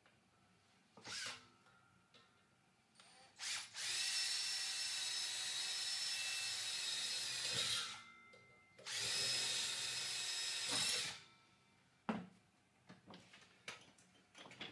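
Cordless drill with a 4.5 mm bit drilling rivet holes through thin steel trunking lid: a steady whine in two runs, the first about four seconds long, the second about two. A few light knocks of the metal being handled come before and after.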